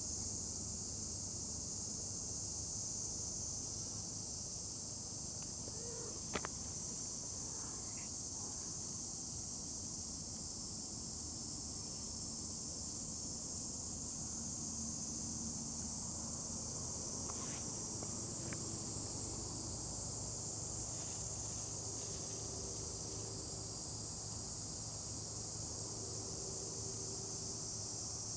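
Steady, unbroken high-pitched drone of an insect chorus. A single sharp click about six seconds in.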